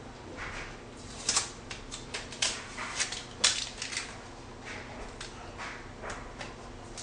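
Tape being pulled off a cornhole board and handled: irregular short crackles and brief rips.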